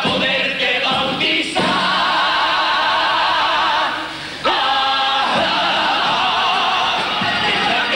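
Carnival comparsa: a male chorus singing in harmony, holding long notes with vibrato. The sound dips briefly about four seconds in, then the next phrase starts.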